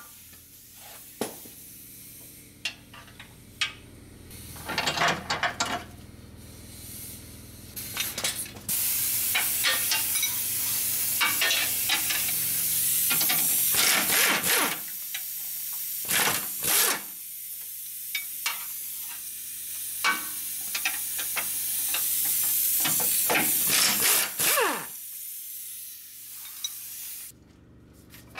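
Air tool running in two long spells of several seconds each, with a loud hiss of escaping air, while a transmission crossmember bolt on a truck is undone. Scattered clicks and metal knocks come before and between the spells.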